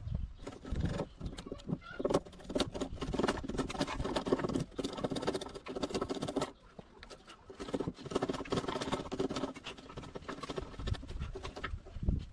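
Hand tools working wood: irregular scratchy scraping and tapping, in two runs with a short pause about six and a half seconds in.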